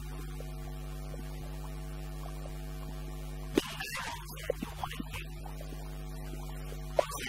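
Steady electrical mains hum with a stack of buzzing overtones, unchanging in pitch and level. A man's voice speaks briefly about halfway through.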